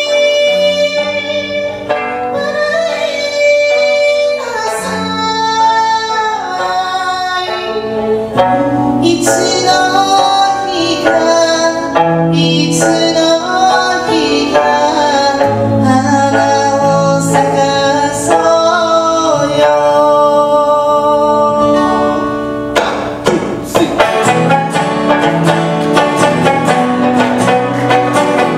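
A woman singing a slow Okinawan song, accompanied by a sanshin (Okinawan three-string lute) and an acoustic guitar. About 23 seconds in, the singing stops and the instruments carry on alone with quick plucked strumming.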